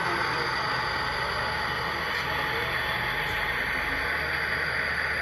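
Model train running along the layout track, a steady rolling noise.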